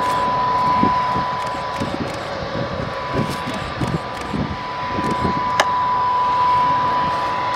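Jet engine running with a steady high whine over a rushing noise, with an uneven low rumble beneath and a single sharp click about five and a half seconds in.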